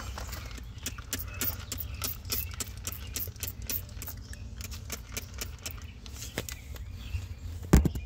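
Hand trigger spray bottle spritzing leak-check solution onto an AC condenser's service valves: quick hissing squirts, a few per second, over a low rumble, with a single thump near the end. The sprays are testing a system pressurized to 600 psi for a leak at the valves.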